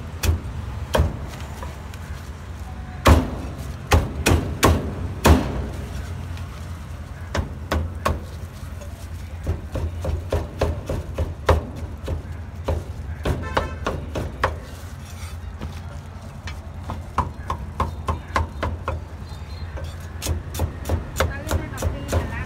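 Cleaver chopping on a wooden chopping block: sharp, irregular chops, in places coming in quick runs of several a second, over a steady low hum.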